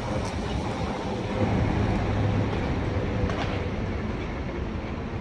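Steady low rumble of a moving vehicle, with a couple of faint clicks.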